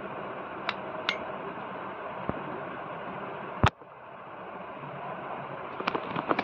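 Small metal parts of a wall fan's motor clinking and tapping as they are handled while its bush bearing is being replaced. There are a few light clicks, one sharp knock about three and a half seconds in, and a quick run of small clicks near the end, all over a steady hiss.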